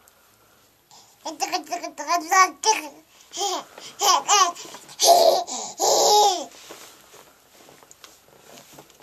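Toddler babbling in high, gliding baby sounds mixed with laughter, starting about a second in, with two longer, louder sounds around the middle, then trailing off to faint sounds.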